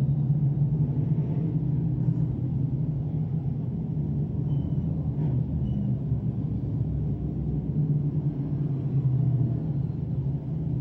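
Crate-engine dirt sportsman modifieds running slowly under caution, a steady low engine drone.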